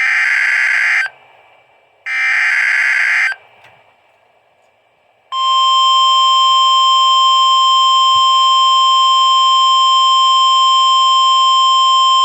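NOAA Weather Radio emergency alert signal: the last two of the three warbling digital header bursts, each about a second long, then a quiet gap, then the steady single-pitch warning alarm tone switching on about five seconds in. It announces a new warning about to be read.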